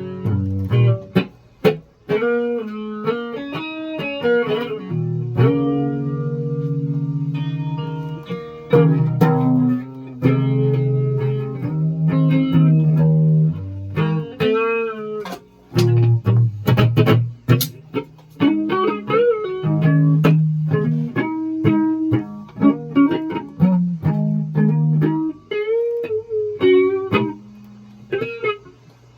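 Electric guitar played alone: picked single notes and short chord stabs with a few string bends, the playing stopping shortly before the end.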